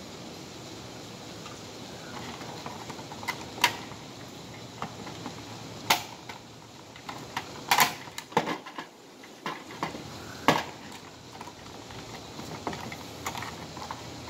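Hands handling a Simplex horn strobe's plastic housing and its wiring: scattered sharp clicks and clatters, a few louder knocks among them, over a steady hiss.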